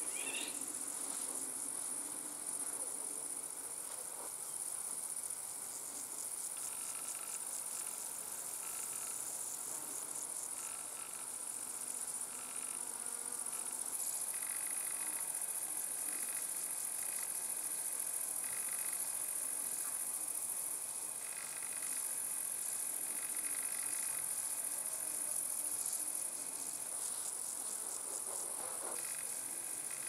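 Meadow insects, crickets and grasshoppers, stridulating in a steady, unbroken high-pitched chorus in tall summer grass. Shorter, lower phrases come and go over it.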